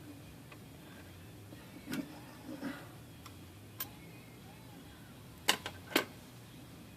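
Light metallic clicks and taps from small tools and parts being worked into a Smith Corona typewriter's ribbon drive mechanism: a few soft ones spread out, then two sharp clicks about half a second apart near the end.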